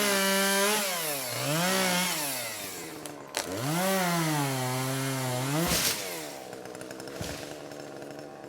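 Chainsaw engine revving up and down as it cuts small trees, its pitch dropping and climbing again twice. A sharp knock comes near the middle, and the saw then falls back to a lower, quieter run.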